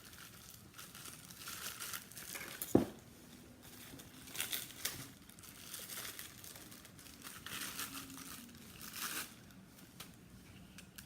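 Packaging crinkling and tearing as blender cups are unwrapped and handled, in irregular rustling swells, with one sharp knock a little under three seconds in.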